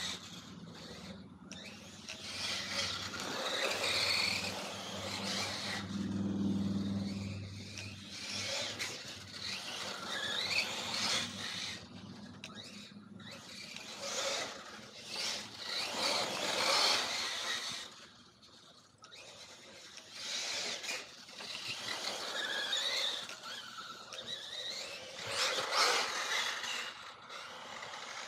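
Electric-converted Mugen MBX8 1/8-scale RC buggy on a 4S LiPo, its motor whining up and down in repeated bursts as it accelerates, brakes and turns, with tyre scrub on the ground. The sound swells and fades as the buggy comes near and moves away.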